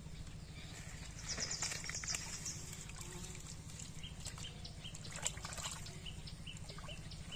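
Water splashing and leaves rustling as clumps of water hyacinth are pulled by hand in shallow pond water, busiest about one to two seconds in, over a steady low hum. In the second half a short high chirp repeats about twice a second.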